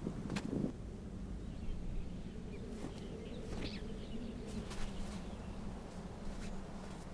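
A few scattered short crunches and clicks over a steady low outdoor rumble.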